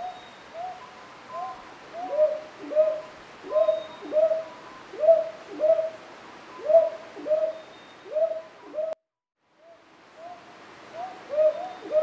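Northern boobook giving its paired hoots, hoo-hoo, each note dipping slightly in pitch, repeated about two notes a second. The calling cuts off suddenly about nine seconds in and resumes within a second.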